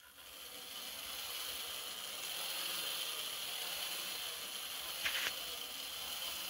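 Tyco US-1 airport accessory's small motor and gears whirring steadily as it swings the toy plane around the tower, building up over the first second. A short louder burst about five seconds in.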